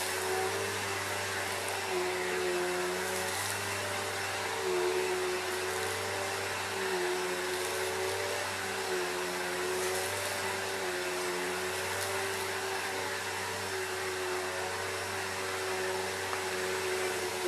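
Vacuum cleaner running steadily while picking up dirt: a motor whine over rushing air, wavering a little in pitch now and then.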